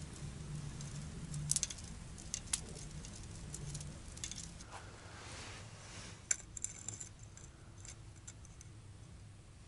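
Light clicks and small rattles from a winter fishing rod and its tackle being handled over an ice hole, with a cluster of sharper ticks a little past the middle.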